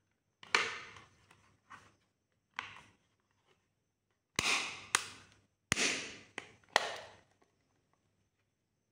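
A hard plastic case being handled and snapped, giving about eight sharp plastic clicks and clacks, most of them close together in the second half.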